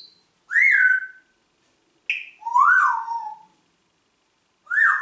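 African grey parrot whistling: three separate whistles, each rising then falling in pitch, with a short higher note just before the middle one.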